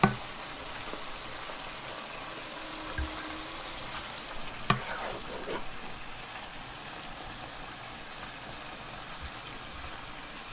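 Steady faint sizzle of a just-cooked asparagus stir-fry in the hot pan, with a sharp utensil click at the start and another about four and a half seconds in, followed by a few light ticks.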